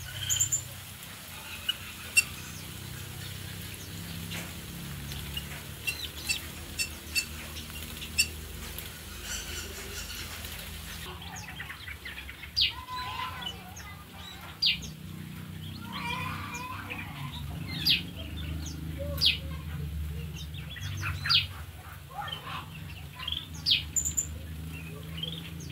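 Many small aviary birds chirping and calling in short, sharp notes that drop steeply in pitch. The calls come thicker in the second half.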